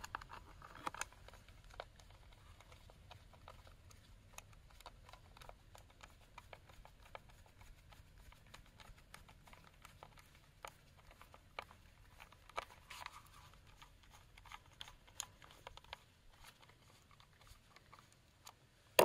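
Faint, irregular small clicks and scrapes of a hand screwdriver tightening a screw into the plastic brush cover of a Ryobi RY18PCA patio cleaner, with gloved hands handling the housing.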